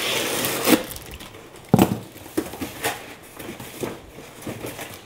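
Packing tape on a cardboard box being cut and ripped open, then the cardboard flaps pulled apart. There is a sharp knock just under two seconds in, followed by lighter taps and rustles of cardboard.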